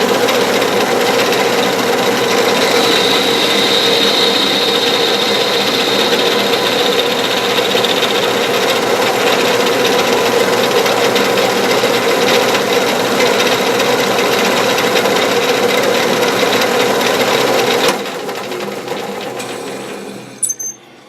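Metal lathe facing the end of a small workpiece: a loud, steady cutting noise over the machine's running tone, with a high whine between about 3 and 8 seconds in. About 18 seconds in the cut stops and the lathe runs down.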